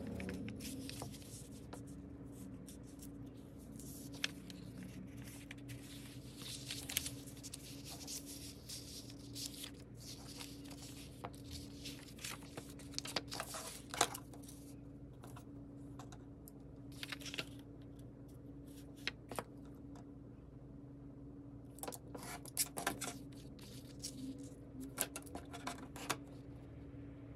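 Paper rustling and crinkling as a kraft-paper notebook and its napkin-paper cover are folded and handled, with scattered taps and clicks. Near the end, a craft knife scrapes as it cuts paper along a metal ruler. A steady low hum runs underneath.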